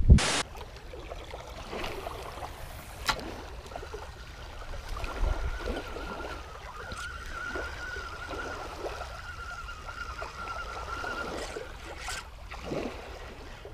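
Small waves lapping at a sandy riverbank, with a sharp click right at the start. Through the middle there is a faint, slightly wavering whir from a spinning reel being cranked to retrieve a lure.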